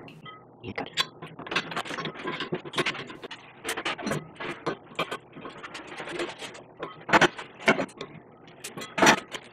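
CO2 regulator's brass inlet fitting being threaded onto an aluminium CO2 canister's valve and tightened with an adjustable wrench: irregular metallic clicks, clinks and scraping, with a few sharper knocks near the end.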